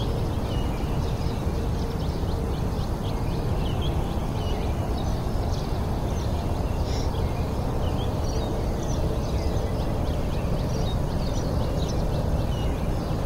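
Many songbirds chirping and calling at once, red-winged blackbirds among them, over a steady low rumble of background noise.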